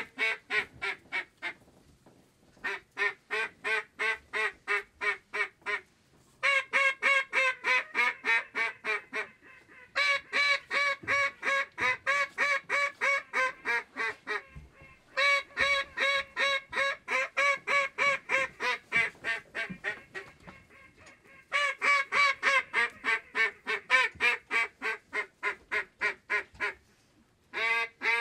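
Hand-blown duck call sounding long strings of evenly spaced quacks, about four a second. There are several strings of a few seconds each with short breaks between them.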